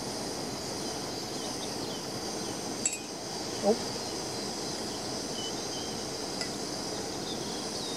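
Steady rushing burn of an MSR WhisperLite petrol camping stove running under a cooking pot, with a single light clink of a spoon against a mug about three seconds in.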